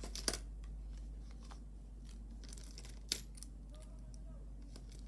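A few light, sharp clicks and faint plastic crinkling as a pair of metal-hooked disc earrings is taken from a small clear plastic bag and handled on a tabletop. The loudest clicks come just after the start and about three seconds in.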